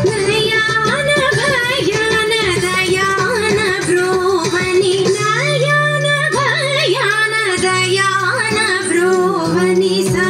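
Indian song with a woman singing a sliding, ornamented melody over steady low sustained notes, played as accompaniment to a classical dance.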